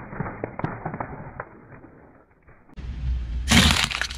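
Eggshells cracking and popping under a slowly rolling car tyre, a quick run of snaps that dies away about two seconds in. Near the end comes a louder crunch of something brittle crushed under another tyre, over a low rumble.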